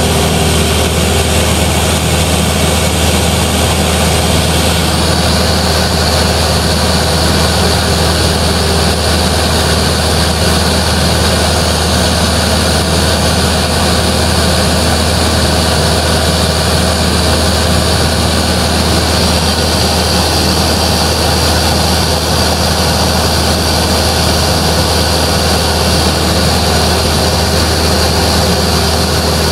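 Steady drone of a Cessna 172's piston engine and propeller in flight, heard inside the cabin with a loud rushing hiss. A higher hiss joins about five seconds in.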